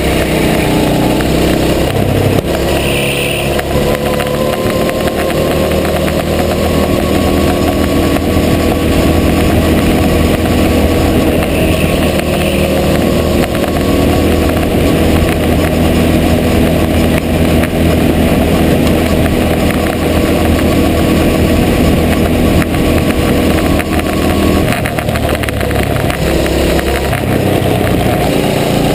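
Go-kart engine heard close up from a camera on the kart, climbing steadily in pitch under throttle along a long straight, then dropping away about 25 seconds in as the kart slows for a corner, and picking up again near the end.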